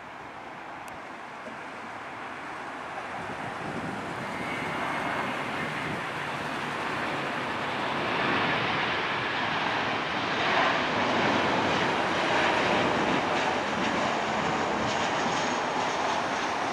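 Boeing 737-800's CFM56-7B turbofan engines on landing approach, a steady jet rumble growing louder as the airliner comes closer.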